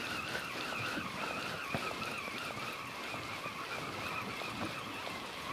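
A distant engine running steadily, its pitch slowly falling, with a few faint clicks.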